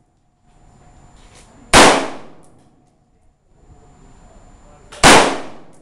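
Two rifle shots from a magazine-fed rifle, about three seconds apart. Each is a sharp crack that trails off over about half a second.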